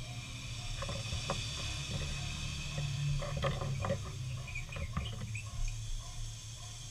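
Scattered small clicks and light rustles from hands moving on the desk and paper, thickest in the middle, over a low steady hum.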